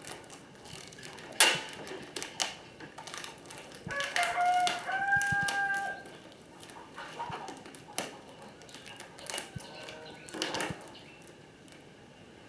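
Clicks, knocks and rustles of two plastic water bottles being taped together with packing tape. About four seconds in, a held, pitched call lasting about two seconds rises over the handling noise.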